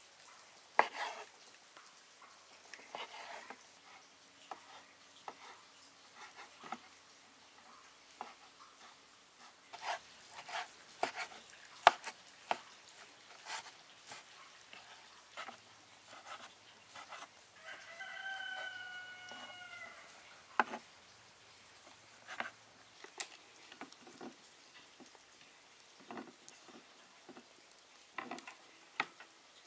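A rooster crows once, a single call of about two seconds roughly two-thirds of the way through, amid scattered sharp clicks and knocks, the loudest of them near the start and in the middle.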